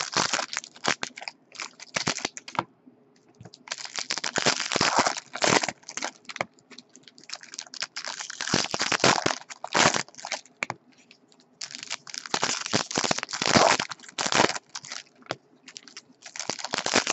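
Foil wrappers of Bowman Chrome Jumbo baseball card packs being torn open and crinkled by hand, in repeated bursts of crinkling with short pauses between.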